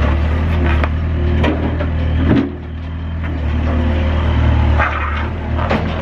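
Mustang 940E skid steer's diesel engine running steadily, with several sharp metal clunks as the bucket is lowered and unhooked from the loader arms; the engine's level drops about two and a half seconds in.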